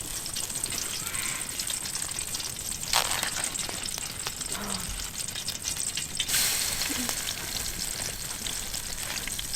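Bacon frying in plenty of hot oil in a titanium pan over a campfire: a steady sizzle with fine crackling pops. The sizzle surges about three seconds in and again just past six seconds.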